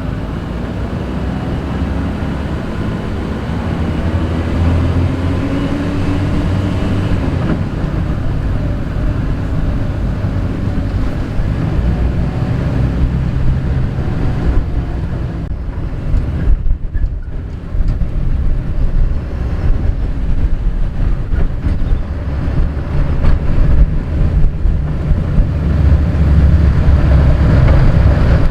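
Vehicle engine running while driving, its pitch rising and then dropping a few seconds in, with wind buffeting the microphone.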